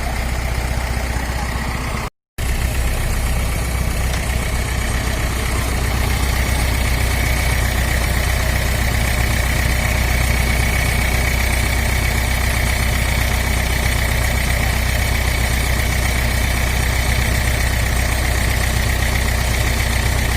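Heavy vehicle engine idling steadily, with the sound cutting out completely for a moment about two seconds in.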